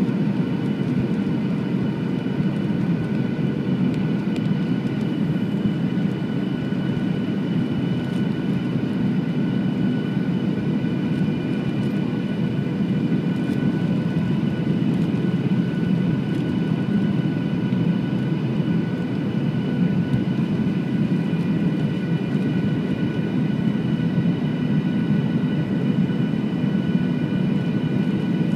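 Boeing 737 jetliner cabin noise heard from a window seat over the wing: a steady, loud drone of engines and rushing air, with several faint steady whining tones above it.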